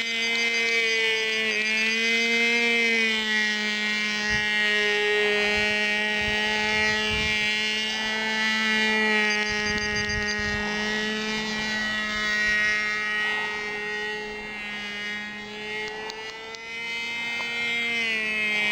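Engine of an RC model airplane flying overhead: a steady buzzing drone whose pitch wavers gently up and down as it flies around, growing a little fainter near the end.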